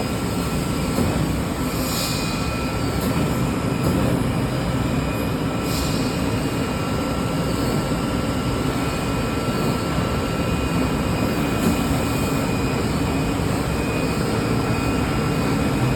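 Steady running noise of an industrial CNC fabric cutting machine with a constant faint high whine, and a few short soft hisses.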